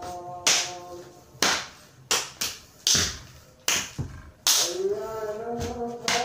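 Sharp slapping hits, about eight of them at irregular spacing, over music: a held, slightly wavering note that fades out at first and comes back about four and a half seconds in.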